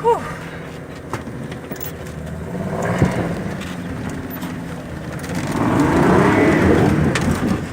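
Land Rover Defender engine pulling steadily up a rough hill climb, with sharp knocks from the vehicle over the terrain about 1, 3 and 7 seconds in. The engine grows louder in the second half, as under harder throttle. A brief rising yelp from a passenger opens it.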